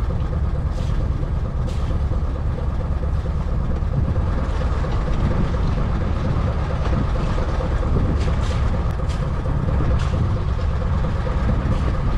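Fishing boat's engine running steadily, a low continuous rumble.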